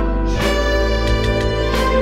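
Youth ensemble music: several instruments play held chords together, with a change of chord about half a second in.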